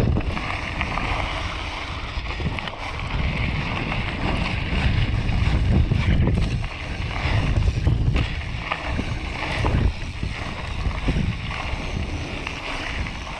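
Wind buffeting the handlebar camera's microphone while bicycle tyres rumble over a loose gravel track at speed, with a few short knocks and rattles from the bike.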